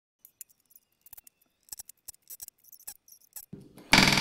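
Light clicks and taps of rivets and tools being handled on sheet aluminum, then near the end a pneumatic rivet gun with a back-riveting attachment starts a loud burst of hammering, back riveting a rivet into an aluminum rudder skin against a steel back-riveting plate.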